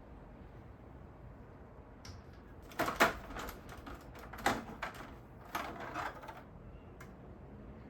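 An air purifier's plastic parts being handled: a few sharp clicks and clacks, loudest about three seconds in, with more around the middle and one near the end.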